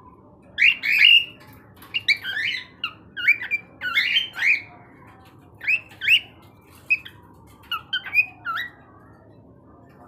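Three-month-old cockatiel's first whistling attempts: a string of about a dozen short chirpy whistle notes, many sliding up or down in pitch. The notes start about half a second in and stop a little before the end.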